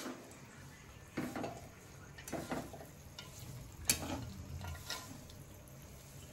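Flat steel spatula stirring and scraping jaggery melting in ghee in an aluminium kadhai on a gas stove, a scrape every second or so over a faint sizzle.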